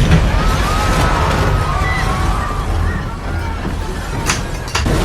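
Staged earthquake: a continuous deep rumble, with thin gliding higher tones over it and two sharp crashes near the end.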